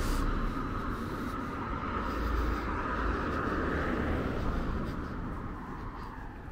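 Road traffic noise from a passing vehicle, its engine and tyre noise slowly fading away.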